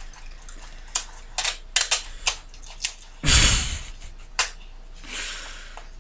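Paper towel being folded around a block of tofu and fastened with scotch tape: a string of short, sharp crackles, with a louder rustle lasting about half a second just past three seconds in.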